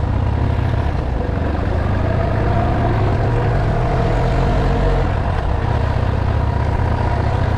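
Motorcycle riding along a road: the engine running steadily under a heavy low wind rumble on the microphone.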